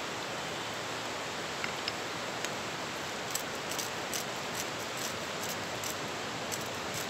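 Steady rush of fast river rapids, with small sharp clicks scattered over it, more of them in the second half.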